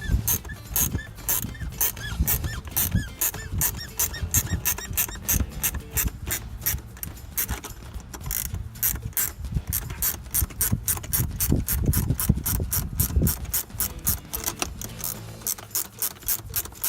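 Socket ratchet clicking quickly and steadily, about six clicks a second, as bolts are backed off.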